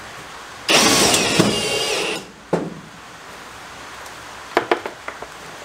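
Cordless drill driving a 65 mm roofing screw down through the drawer unit's foot bracket into the ute tray. The motor whirs for about a second and a half, its pitch wavering, then stops suddenly. A knock follows, then a few light metallic clicks near the end.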